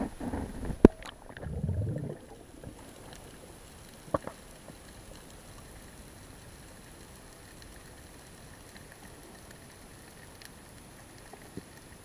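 Underwater water noise: a low rumbling rush in the first two seconds with one sharp click just under a second in, another click about four seconds in, then a faint steady hiss with a few scattered faint clicks.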